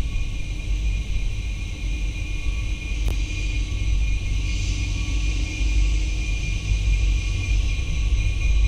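Steady low rumble of a distant approaching freight train's diesel locomotive, with a faint steady high hiss over it.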